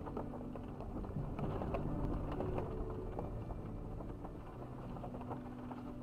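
A four-wheel drive's engine running steadily at crawling speed, heard from inside the cabin, with scattered knocks and rattles from the body as it rolls over a rough dirt track.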